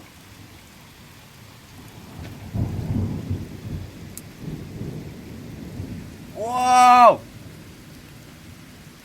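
Thunder rumbling over steady rain, swelling about two and a half seconds in. Near the end a loud, drawn-out wordless cry from a person's voice, lasting under a second.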